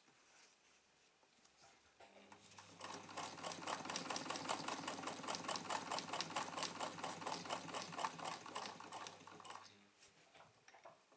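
Alfa 50 vintage sewing machine, a Singer 15 clone, starts up about two seconds in and sews steadily for about eight seconds: a rapid, even clatter of needle strokes over a steady motor hum, then it stops near the end.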